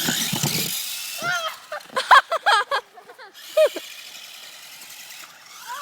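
Children's short excited shouts and squeals, between two stretches of rushing noise, the louder one at the start.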